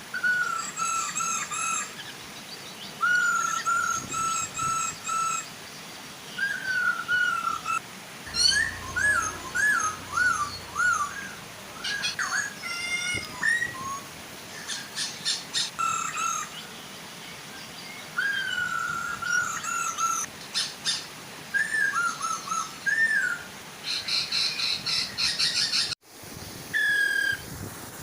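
Poksay hongkong laughingthrushes singing: runs of loud, clear whistled phrases, some repeated notes and some swooping up and down, with chattering bursts near the end, over a steady soft rush of waterfall water.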